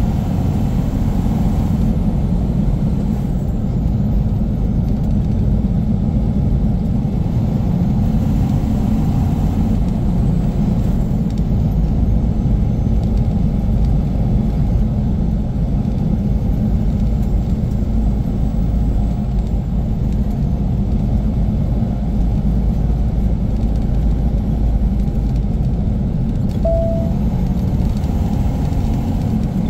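Steady low rumble of a semi-truck's diesel engine and road noise, heard from inside the cab while driving.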